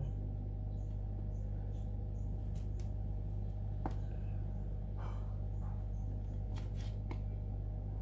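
Soft handling noise of a car central-lock wiring harness, with a few faint small clicks as the plastic-insulated wires and connectors are sorted by hand, over a steady low electrical hum.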